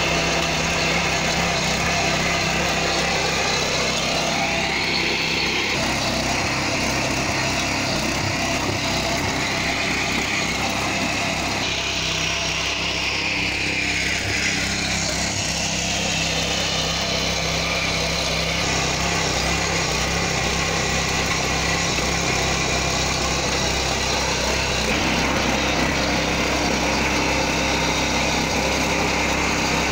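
Small air-cooled single-cylinder petrol engine of a 7 HP walk-behind power tiller running steadily while its rotary tines till grassy soil. The engine note shifts in pitch a couple of times.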